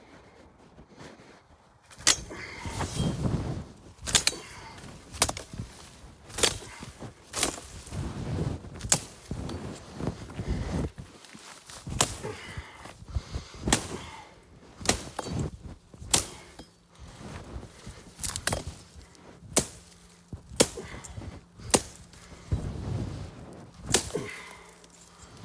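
Weed stalks being chopped down with a swung hand tool: a sharp chop roughly once a second, unevenly spaced, starting about two seconds in, with rustling and handling noise between the strokes.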